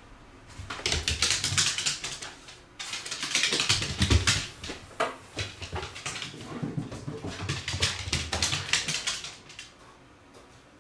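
A black Shiba Inu's claws clicking and scrabbling on a wooden floor in quick runs, with soft thuds of paws, as the dog dashes about. The clatter keeps up for most of the stretch and dies down near the end.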